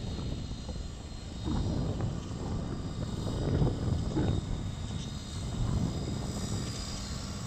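Children's quad bikes with small engines buzzing as they ride along a dirt track, the sound swelling and fading as they go.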